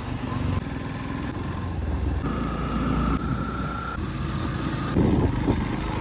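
Motorcycle being ridden, its engine and the ride making a steady low rumble.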